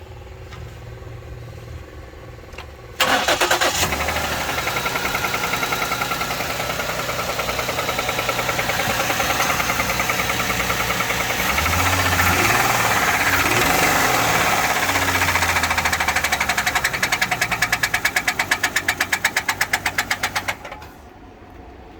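2008 Ford Edge's 3.5-litre V6 engine running with a rapid, regular knocking. It becomes loud suddenly about three seconds in and drops away near the end.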